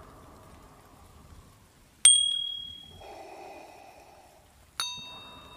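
Two short bell-like ding sound effects, one about two seconds in and another near five seconds, each a sharp strike that rings briefly and dies away. They are the chimes of a subscribe-button and notification-bell tap animation.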